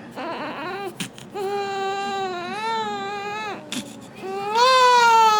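Little girl crying: short sobs, then a long steady wail, then a louder, higher-pitched wail near the end.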